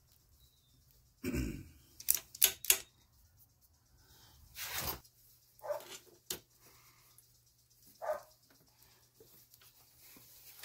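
Metal parts of a Honda XR250's carburetor mounting being handled and worked loose by hand: a dull thud, three quick sharp clicks, then a scrape and a few scattered knocks.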